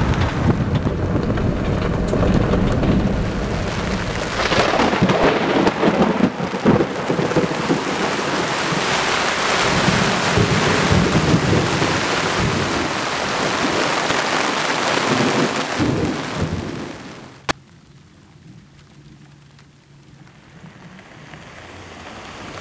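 Heavy rain falling with thunder rumbling. About three-quarters of the way through the sound drops away sharply with a single click, leaving a much quieter hush.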